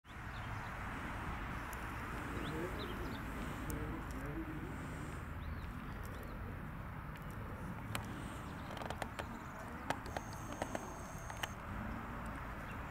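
Steady outdoor background noise with faint distant voices in the first few seconds. Several sharp clicks come between about eight and eleven seconds in, along with a brief high whistle.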